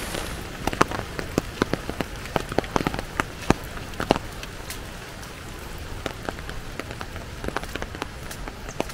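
Raindrops ticking irregularly on a surface over a low steady rumble, the drops thicker in the first four seconds and thinning out after.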